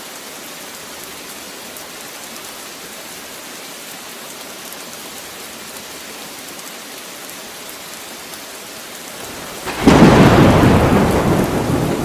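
Steady rain falling, then a sudden loud clap of thunder about ten seconds in that rumbles on and slowly fades while the rain continues.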